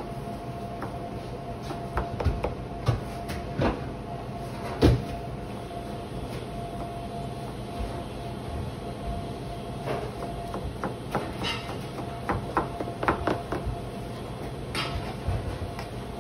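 Kitchen clatter: scattered knocks and clinks of dishes and utensils being handled during food preparation, over a steady hum. The loudest knock comes about five seconds in.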